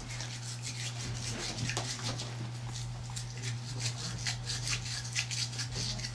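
Toothbrush scrubbing an Italian Greyhound's teeth: quick, repeated bristle strokes, several a second.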